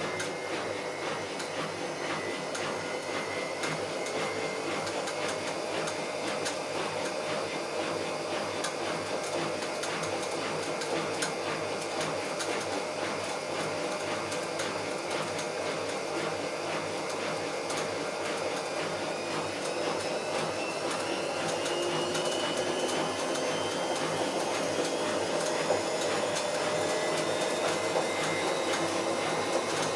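Bauknecht WA Plus 844 washing machine running, its drum turning with a steady noise full of fine clicks. About two-thirds of the way through, a whine starts rising in pitch and the noise gets a little louder as the drum speeds up. It is the sound of a machine with a damaged drum bearing.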